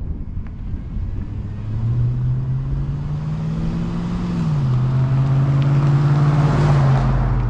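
2006 Chevy Silverado's 5.3-litre V8, breathing through a cheap aftermarket cold air intake, accelerating hard: the revs climb, drop once at an upshift about halfway through, then climb again, louder, before cutting off abruptly at the end. This is a full-throttle run that leaves black tyre marks on the road.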